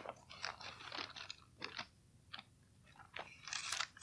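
Thin Bible pages being leafed through: a faint, irregular string of short, crisp paper rustles, thickest near the end.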